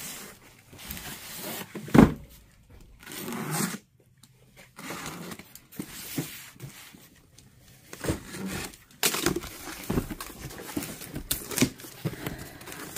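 Cardboard boxes being handled and opened: flaps and sides rubbing, scraping and tearing, with irregular knocks. The loudest is a sharp knock about two seconds in.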